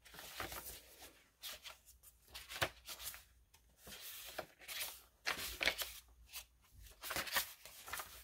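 Paper pages of a handmade junk journal being turned one after another, a series of short rustles and flaps as each sheet of mixed paper (thin crinkly sheets and stiffer card) is lifted and laid over.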